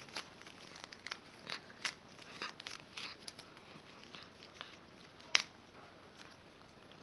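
A string of small irregular clicks and crackles, with one sharper click a little past five seconds in.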